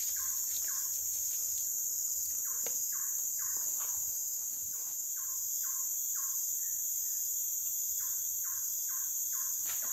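A steady, high-pitched chorus of insects, with a bird repeating a short call about twice a second in several runs.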